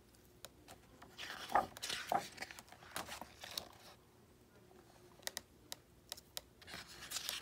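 Faint rustle of a picture book's clear plastic overlay page being lifted and turned over, about a second in and lasting a couple of seconds, followed by a few light clicks and taps of fingers on the pages.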